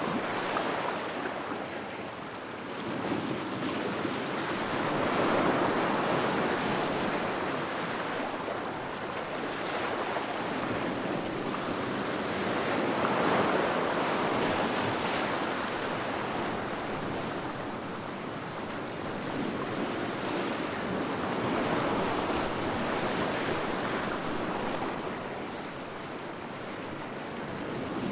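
Ocean surf breaking on a beach: a continuous wash of waves that swells and eases about every eight seconds.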